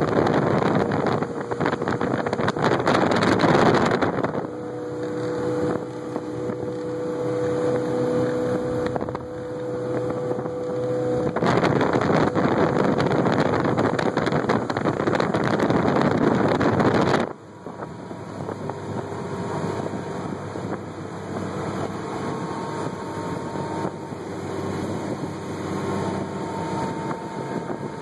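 2013 Celebrity 230 bowrider's 260 hp V8 engine running at speed under a rush of wind on the microphone and water churning in the wake. The overall noise drops suddenly about two-thirds of the way through, then carries on steadily at a lower level.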